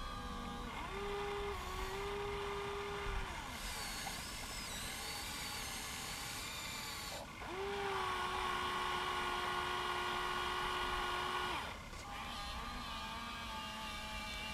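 Small electric motors of a Huina RC excavator whining in two spells of about three and four seconds, each rising briefly in pitch as it starts and then holding steady, over a fainter continuous motor hum.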